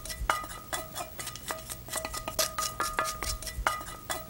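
A wooden spoon scraping and knocking a heavy pan clean of toasted mustard seeds and urad dal as they are emptied onto cooked rice. The knocks come quickly and irregularly, several a second, with the metal ringing briefly after each.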